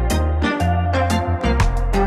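Background music with a steady beat, a heavy bass line and regular percussion hits.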